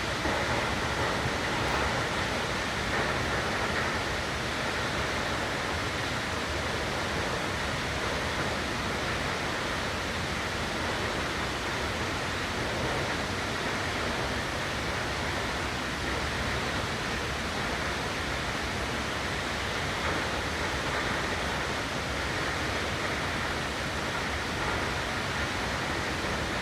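Nachi Falls, a tall waterfall, pouring down: a steady, unbroken rush of falling water.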